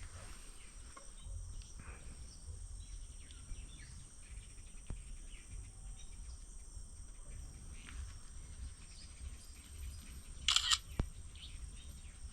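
Outdoor rural background with a steady high-pitched insect drone, faint handling ticks and rustles, and one short loud rustle about ten and a half seconds in.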